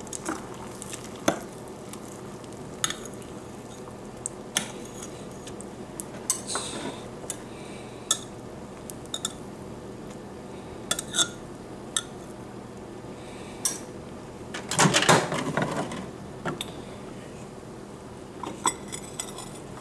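A metal kitchen knife clinking and scraping against a glass Pyrex measuring cup while stirring partly melted soft plastic, in irregular taps, with a louder clatter about three-quarters of the way through.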